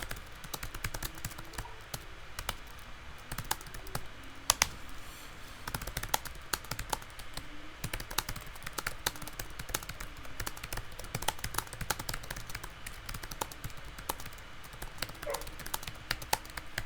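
Fast typing on a computer keyboard: a dense, uneven patter of key clicks during a timed typing test, with a few louder key strikes.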